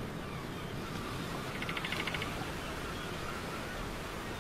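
Dark horror ambience: a steady low rumbling noise bed, with a brief fast rattle of clicks, an animal-like chatter, about two seconds in.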